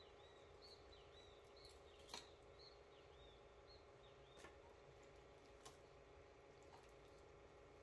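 Near silence: a faint steady hum, with faint high chirps through the first three seconds and three faint clicks of a knife against a plastic cutting board as raw chicken is cut from the bone.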